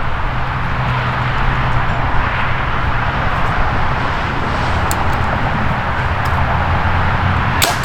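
Steady engine drone with a low hum, broken by a few sharp clicks near the end.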